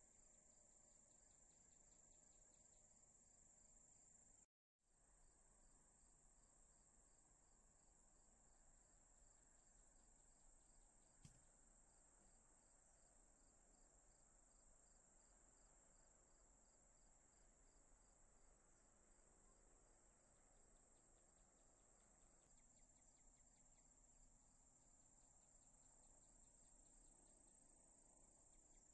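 Faint chorus of crickets: a steady high-pitched trill, with a second ticking insect call repeating beneath it. The sound breaks off completely for a moment about four seconds in, and there is one faint click about eleven seconds in.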